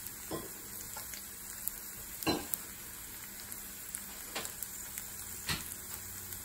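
Carrot, onion and fried tofu sizzling steadily in sunflower oil in a stainless steel pan, with a few sharp pops scattered through.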